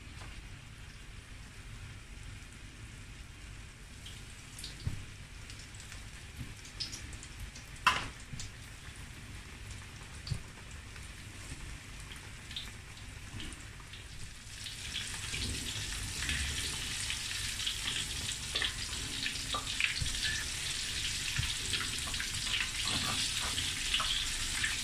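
Batter-coated mushroom pieces deep-frying in oil at medium heat in a wok: a faint crackle with scattered pops at first, then from about halfway a louder, dense sizzling crackle. A single sharp click about 8 seconds in.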